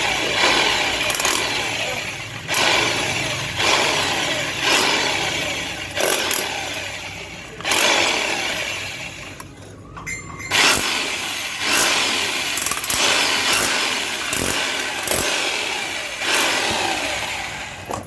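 Hand-held power tool run in repeated short bursts, about a dozen in all, each starting sharply and tailing off.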